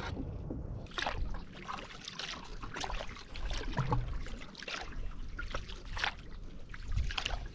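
Canoe paddle dipping into river water: irregular short splashes and trickling drips, about one every half second to a second.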